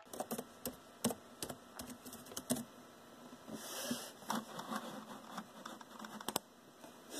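Faint, irregular small clicks and light taps, a dozen or so scattered unevenly, with a brief soft hiss about halfway through.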